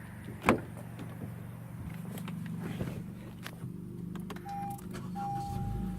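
A sharp knock half a second in, then a 2015 Honda Civic Si running with a steady low hum. About four seconds in, a dashboard chime starts, sounding as long steady tones with short breaks.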